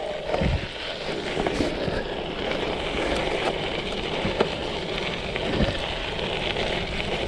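Cyclocross bike rolling fast over a gravel and dirt track: a steady rush of tyre and wind noise, with scattered clicks and knocks as the tyres hit stones and bumps.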